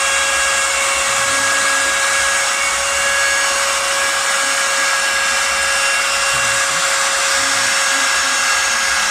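Spindle motor of a home-built CNC router running steadily while it cuts, a high-pitched whine over a hiss, with faint lower tones from the machine coming and going underneath.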